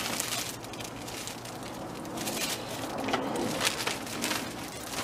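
Clear plastic zippered bag crinkling and rustling as it is handled and lifted out of a cardboard box: irregular crackles throughout.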